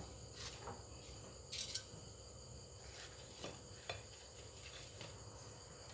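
Quiet room tone with a faint steady high hum and a few soft clicks.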